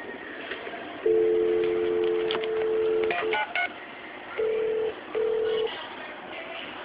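Elevator emergency telephone's autodialer heard through its speakerphone: a steady dial tone for about two seconds, then a quick burst of touch-tone dialing. Two short ringing pulses follow as the call rings through.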